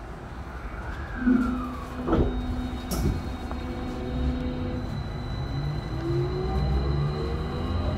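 Tokyo Metro 16000 series electric train heard from inside the car as it starts from a station: two clunks about two and three seconds in, then the traction motor and inverter whine, rising in pitch as the train begins to accelerate.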